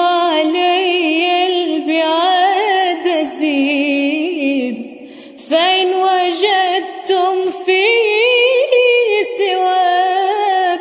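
Solo voice singing an Arabic mawwal in a drawn-out melismatic line with quick wavering ornaments. About four and a half seconds in the phrase sinks in pitch and fades, and a new phrase begins a second later.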